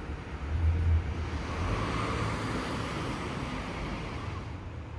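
A car passing, its noise swelling about a second and a half in and fading away near the end. Low rumbling thumps in the first second, like wind on the microphone.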